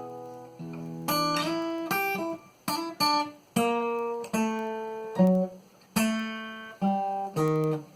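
Cort GA5F-MD acoustic guitar, spruce top with Madagascar rosewood back and sides, played fingerstyle: a chord rings out and fades, then a phrase of plucked notes and chords, each ringing on before the next.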